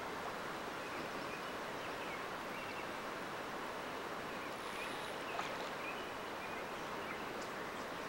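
Steady rush of flowing river water, with a few faint high chirps.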